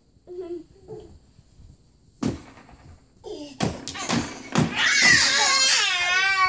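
A few dull thumps of small children wrestling, then about two-thirds of the way in a toddler breaks into a loud, high, wavering cry that carries on.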